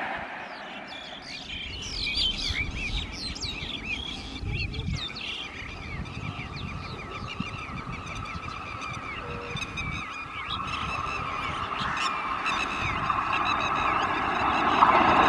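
Many birds chirping and calling in quick, short notes. From about ten seconds in, the steady hum and rumble of an approaching electric-locomotive-hauled passenger train grows louder toward the end.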